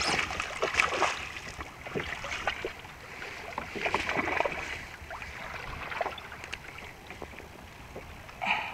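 Hooked barracuda thrashing and splashing at the surface beside the kayak, in bursts near the start and again about four seconds in, over wind and water noise.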